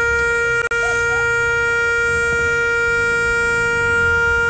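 Car horn held down in one long steady blast, broken once for an instant less than a second in.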